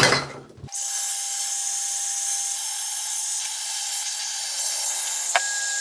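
Heat gun blowing steadily, a hiss of air with a faint whine in it, warming a plastic pipe to soften it for bending. It starts about half a second in, and a sharp click comes about five seconds in.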